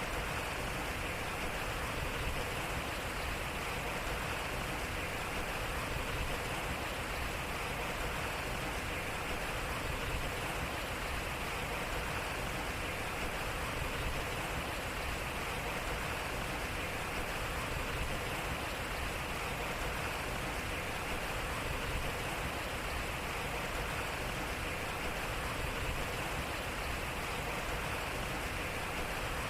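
Water rushing and splashing off a turning waterwheel, a steady, even rush with no breaks. It is a short recording that repeats every four seconds.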